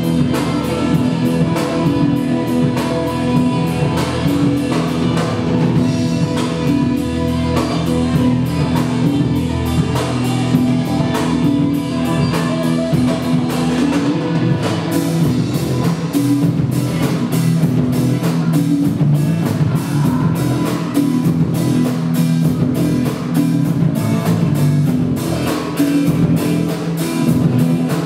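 Live rock band playing: electric guitars, bass guitar and drum kit, amplified. The drumming gets busier and sharper about halfway through.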